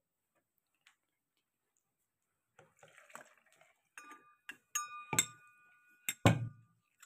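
Light clinks and taps of glass and metal kitchenware being handled on a table, with a clear ringing tone from about four seconds in, like a struck glass bowl or spoon, and two louder knocks near the end.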